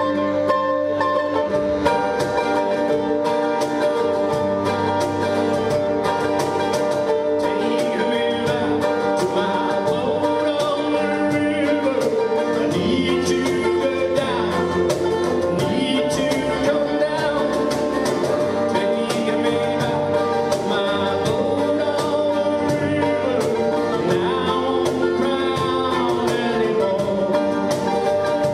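Live acoustic folk band playing: accordion, mandolin and acoustic guitar over a steady cajón beat, with a voice singing.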